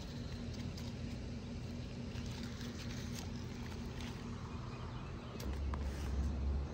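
Leaves rustling with small scattered clicks as a hand moves through strawberry plants, over a steady low outdoor hum. Near the end, wind buffets the microphone with a deep rumble.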